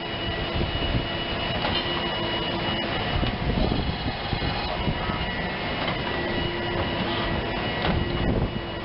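CNC rotary-draw tube bending machine running an automatic cycle on steel tube: a steady mechanical hum with a few high whining tones that start and stop as the axes move, and some light clicks.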